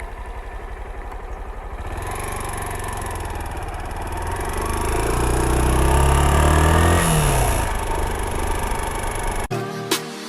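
Honda Bros 160's single-cylinder engine idling, then revved up and back down, with a metallic clatter that the owner suspects comes from the cam chain or its tensioner. Music starts near the end.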